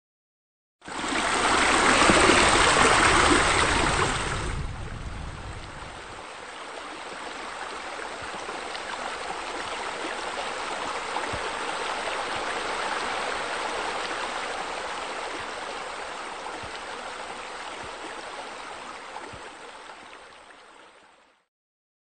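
Water rushing and splashing as from a waterfall: a heavy, full rush for the first few seconds, then a softer steady flow that fades away and stops shortly before the end.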